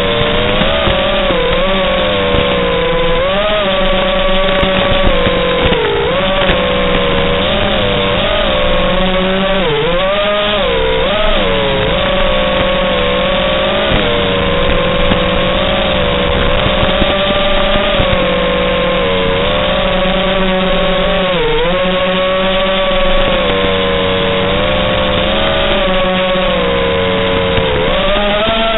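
A 5-inch FPV racing quadcopter's brushless motors and propellers whining at high throttle, with a steady low hum underneath. The pitch holds fairly level but dips sharply several times, where the throttle is briefly eased for turns, and then climbs back.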